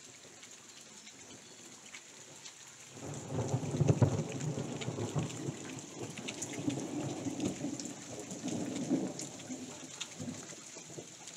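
Steady rain pattering. About three seconds in, a long roll of thunder comes in suddenly, is loudest a second later, and fades away over the next several seconds.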